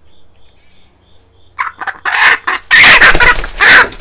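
A hen squawking loudly in a run of harsh cries, starting about a second and a half in, while cornstarch is tapped onto the bleeding wound on the back of her head where other hens pecked her.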